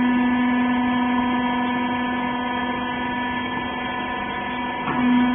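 Hydraulic rag baler's electric motor and hydraulic pump running with a steady hum. It eases slightly in level, then a brief change comes near the end and the hum is louder again.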